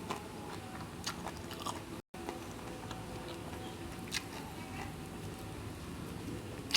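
A person chewing a mouthful of food close to the microphone, with scattered small mouth clicks. The sound drops out completely for a moment about two seconds in.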